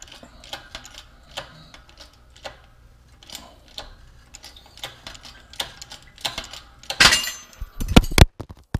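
Scattered light metallic clicks and taps of press and barrel parts being handled, then a cluster of loud knocks and rubbing about seven seconds in as the camera is picked up and moved.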